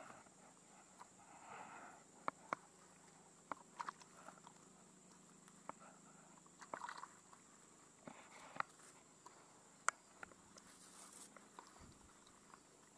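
Quiet handling of a cast net as small fish are picked out of it by hand: soft rustling and about ten scattered sharp clicks.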